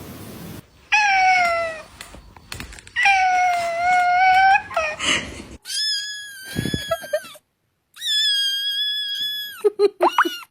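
A cat meowing: four long, drawn-out meows and a short one near the end, the later meows higher-pitched than the first two.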